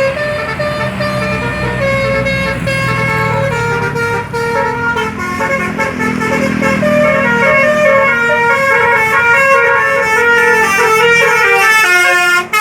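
Bus 'telolet' multi-tone horn (Basuri type) playing a melody of stepped, held notes over the bus's engine running, with a quick run of short notes near the end.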